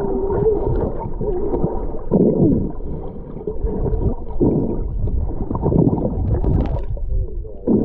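Muffled underwater gurgling and bubbling as a swimmer kicks and churns the water close by, heard with the microphone underwater, so the sound is dull with little high end. It swells and fades unevenly as the strokes come.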